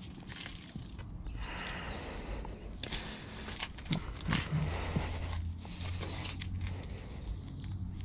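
Crinkling and rustling of a vinyl door-handle wrap piece and its backing paper being handled, with a few sharp clicks. A low steady hum comes in about halfway through.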